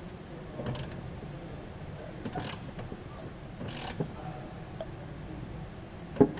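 A wrench turning the Saab B207E engine over by hand to push the piston up against rope packed into the cylinder: a few scattered metallic clicks, the loudest a sharp click near the end.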